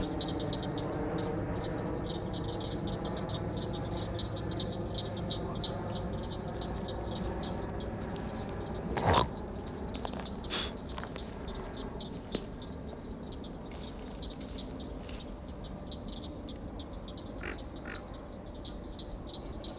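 Night chorus of frogs and insects: a low droning frog chorus, strongest in the first several seconds, under a fast, steady insect trill. A single brief loud sound cuts across it about nine seconds in, and a few short clicks follow.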